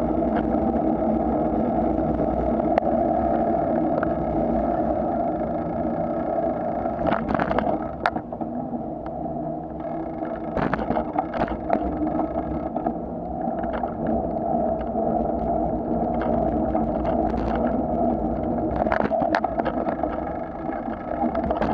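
Bicycle being ridden over tarmac and block paving, a steady droning hum with short rattling clatters as it bumps over rougher ground, about a third of the way in, around the middle and again near the end.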